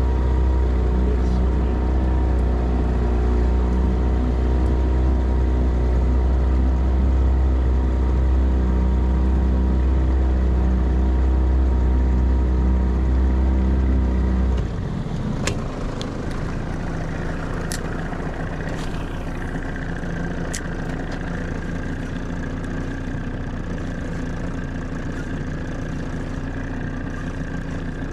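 Outboard motor running steadily under throttle, then throttled back to idle about halfway through. Over the idle come a few sharp clicks.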